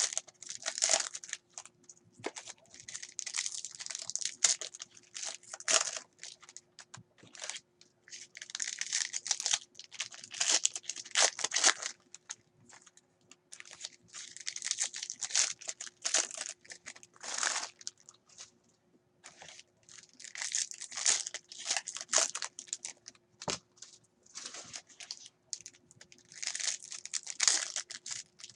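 Foil trading-card pack wrappers being torn open and crinkled in the hands, in repeated short bursts, as packs of 2016 Panini Prizm football cards are opened. A faint steady hum runs underneath.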